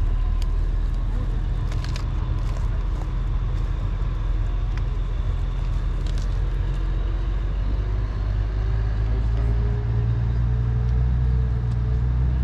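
Motor vehicle engine running nearby, a steady low rumble with a faint tone that slowly rises in pitch over the second half.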